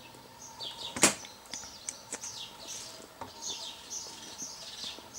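Small birds chirping nearby, a run of short high notes that slide downward and repeat every half second or so. A single sharp click about a second in.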